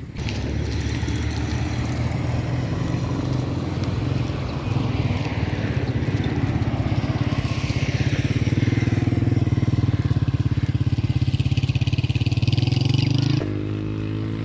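An engine running steadily, its fast pulsing note slowly growing louder; near the end the note changes and the level drops.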